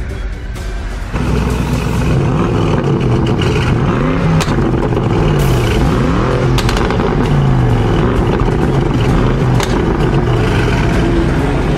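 BMW M8 prototype's twin-turbo V8 revving through its quad exhaust. It gets louder about a second in, then the revs climb and drop several times, with a few sharp cracks.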